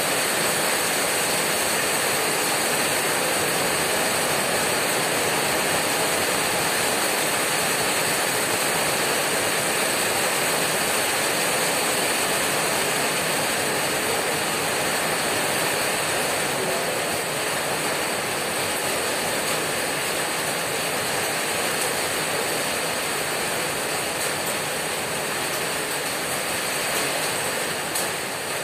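Heavy rain hammering on a corrugated tin roof, a dense, steady patter of drops on the metal. It eases a little about two-thirds of the way through, and a few sharper drip clicks stand out near the end.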